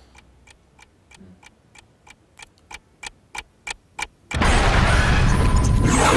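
Clock-like ticking, about three ticks a second, growing steadily louder. About four seconds in, a loud, harsh burst of noise cuts in and holds.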